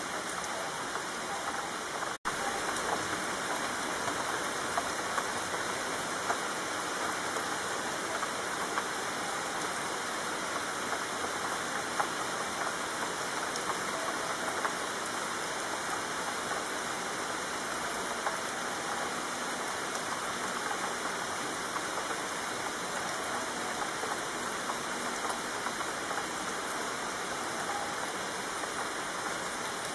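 Steady rain falling, an even hiss with scattered louder drop ticks. It drops out for an instant about two seconds in.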